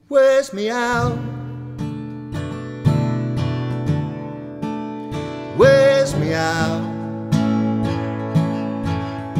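Acoustic guitar strumming chords, Bm7add11 moving to A, in an even rhythm, with a man singing long held notes over it near the start and again about halfway.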